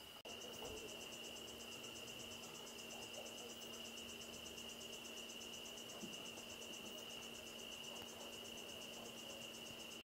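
Night insects, crickets, trilling: one steady high trill with a faster, rapidly pulsing trill above it. Both start after a short break in the sound just at the start.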